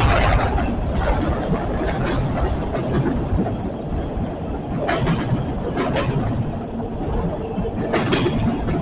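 A train rolling past, its wheels running with a steady rumble and clacking sharply over the rail joints every second or so.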